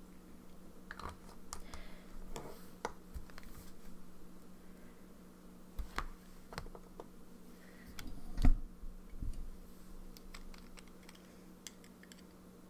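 Scattered light clicks and taps from handling a paper planner and small items on a desk, over a faint steady hum, with one louder knock about two-thirds of the way through.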